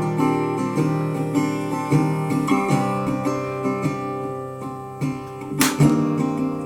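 Acoustic guitar music: strummed chords and ringing notes, with a sharp strum about five and a half seconds in.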